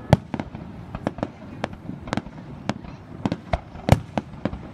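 Aerial fireworks shells bursting in quick, irregular succession, about three sharp bangs a second. The loudest bangs come just after the start and about four seconds in.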